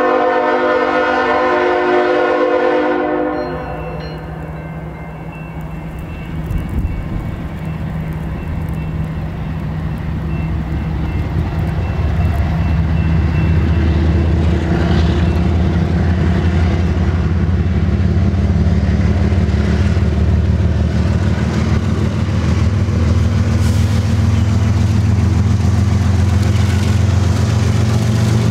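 A diesel freight locomotive's multi-note air horn sounds a blast that ends about three seconds in. Then the locomotive's diesel engine rumbles, growing steadily louder as the train draws close and passes.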